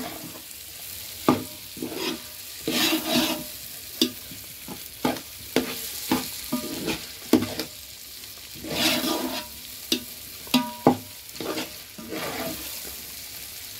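Long metal spoon stirring okra and onion masala in a steel pot: irregular clinks and knocks of the spoon against the pot, with a few longer scrapes, over a faint frying sizzle.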